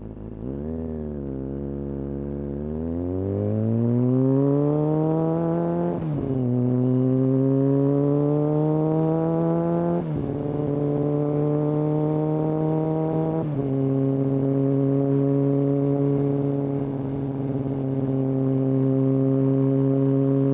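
Kawasaki ZX-6R inline-four through a Hindle aftermarket exhaust, pulling away and accelerating with the revs climbing and dropping sharply at three upshifts, about 6, 10 and 13 seconds in, then running at a steady cruise.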